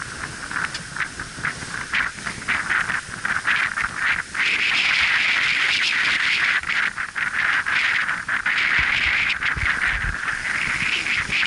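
Sea water rushing and hissing along the hull of a sailing yacht under way in choppy water. It grows louder and steadier about four seconds in, with a few low wind buffets on the microphone near the end.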